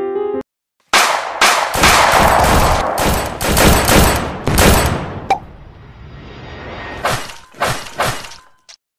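Gunfire sound effects: a dense run of rapid shots for about four seconds, fading into a hiss, then three or four separate shots near the end.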